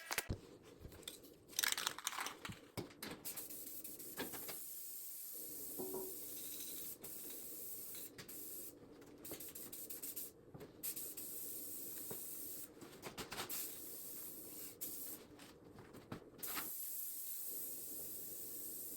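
Aerosol spray-paint can hissing in long bursts with short breaks between them, as parts are spray-painted.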